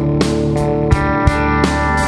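Music with guitar over a steady beat, the drum strokes falling about three times a second.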